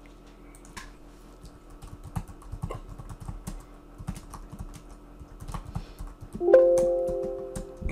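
Typing on a computer keyboard, keystrokes coming in quick runs. About six and a half seconds in, a short electronic chime sounds, a few steady tones that fade out over about a second.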